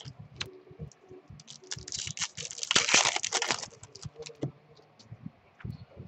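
Hands handling a freshly opened pack of Topps baseball trading cards: scattered light clicks and taps of the card stock, with a longer rustling burst about two to three and a half seconds in.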